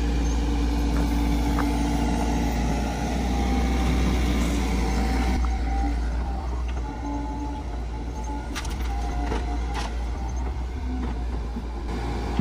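Komatsu PC88MR excavator's diesel engine running steadily as it digs dirt and swings to load a dump truck, with a couple of sharp clanks about two-thirds of the way through.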